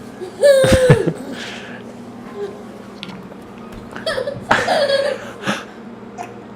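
Toddler squealing and laughing in two loud bursts, one short high squeal about half a second in and a longer stretch of laughter about four seconds in.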